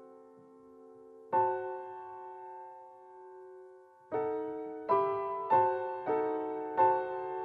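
Slow, gentle piano music: a chord struck about a second and a half in and left to ring, then a series of chords struck roughly every half second to second from about four seconds in, each dying away.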